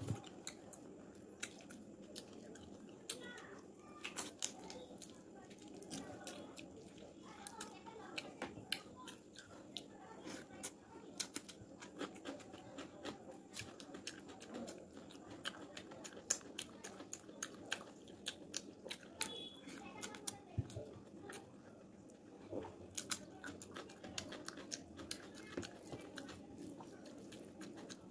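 A person eating rice and chicken curry by hand: wet chewing and lip-smacking clicks come irregularly, several a second, along with fingers working the food on the plate. Under them is a steady low background hum.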